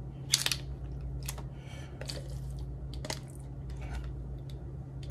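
Scattered light taps and clicks of kitchen utensils and containers being handled during ingredient prep, about one every half second to a second, over a steady low hum.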